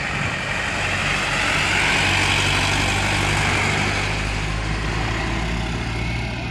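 A truck loaded with sugarcane driving past at speed. Its engine hum and road noise swell as it goes by, then fade as it pulls away.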